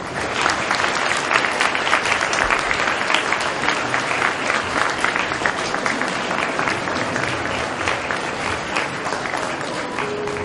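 Audience applauding: dense clapping from a large crowd that breaks out suddenly and eases off a little near the end.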